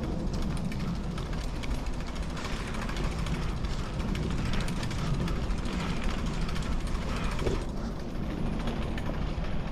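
Bicycle being ridden along a trail: steady tyre and rolling noise with a fine, continuous rattle of small clicks from the bike.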